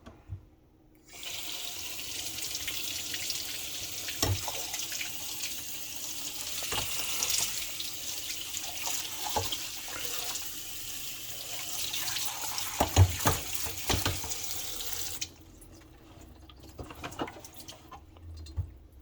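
Kitchen faucet running as the ice maker's auger and bucket assembly is rinsed in the sink, with a few knocks of it being handled. The water starts about a second in and shuts off about three-quarters of the way through, leaving a few light clicks.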